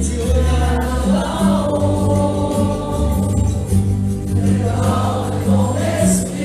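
A group of people singing a song together, choir-style, over a steady low accompaniment.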